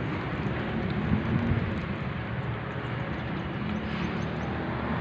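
Steady outdoor noise of road traffic with a constant low rumble.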